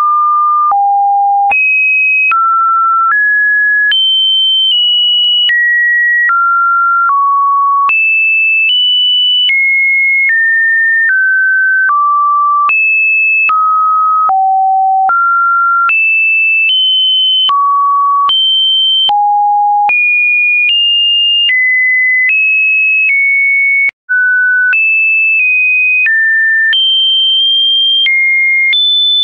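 Electronically generated test tones: a string of pure sine-wave beeps, one after another with no gap, each held a little under a second and jumping up or down to a new pitch at every step, from a mid beep to a high shrill one. One brief silent break comes near the end.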